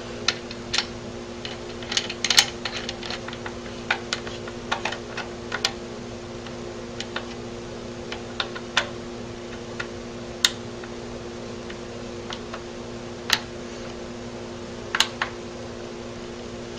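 Scattered, irregular light clicks and taps of a screwdriver turning a Mosin-Nagant's rear tang screw into the trigger guard, over a steady low hum.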